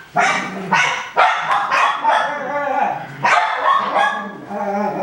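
Seven-week-old Coton de Tulear puppies barking and yapping at play, a quick run of short barks with brief gaps between them.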